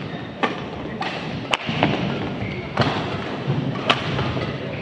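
Badminton rackets striking the shuttlecock in a rally: four sharp cracks about a second apart over the steady hum of an arena crowd.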